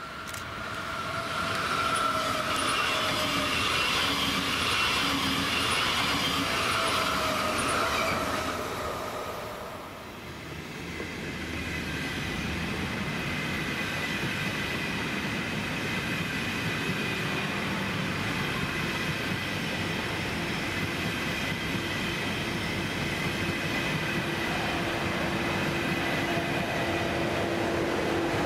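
Two electric trains pass in turn. First a Stadler KISS double-deck electric multiple unit goes by with a whine of gliding motor tones; after a short lull about ten seconds in, an ÖBB Railjet pushed by a Class 1116 Taurus locomotive rolls past, a steady rail rolling noise with thin high tones, and a lower hum from the locomotive at the rear comes in near the end.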